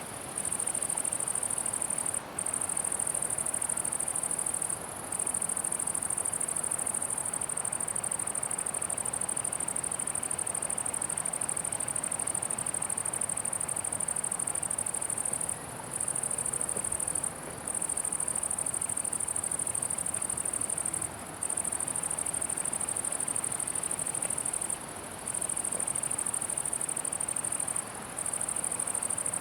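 A cricket singing a continuous high-pitched buzz that breaks off for a split second every few seconds, over a faint background hiss.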